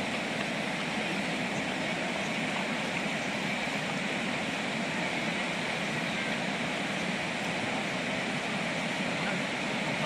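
Shallow river flowing over stones: a steady rushing of water.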